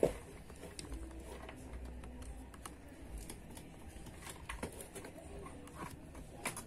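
Scattered light clicks and taps of a ring light being handled and fitted on its tripod stand, over a low steady hum.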